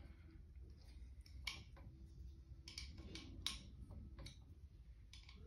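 Faint scattered clicks of an Allen wrench working bolts loose on a Razor Power Core E95 electric scooter's stem, about six light clicks spread over a few seconds.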